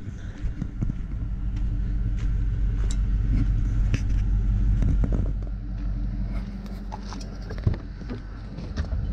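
Car engine running with a steady low rumble that swells about halfway through and eases off, with scattered clicks and knocks over it.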